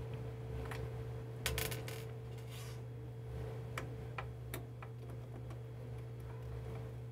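Small Phillips screwdriver backing tiny screws out of a blood pressure monitor's circuit board: faint, irregular clicks and ticks of metal on screw heads and plastic, over a steady low hum.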